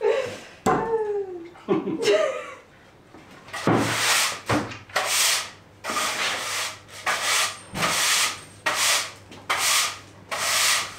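A broom sweeping grit and debris across a concrete floor in repeated brisk strokes, a little under one a second, starting about four seconds in. A few short vocal sounds come before the sweeping.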